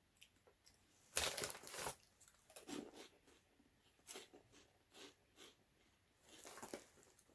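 Crunchy corn puff snacks being bitten and chewed: one loud crunch about a second in, then a scatter of short, quieter chewing crunches.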